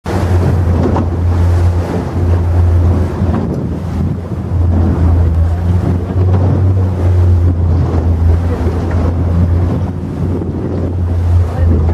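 Boat engine running steadily with a constant low hum, under wind rushing over the microphone and the sound of sea water.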